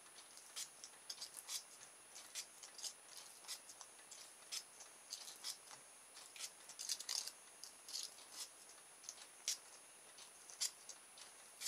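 Folded sandpaper rubbed along the end of thin coated wire in short, irregular scratching strokes, sanding off the insulation so the wire can make electrical contact. Faint.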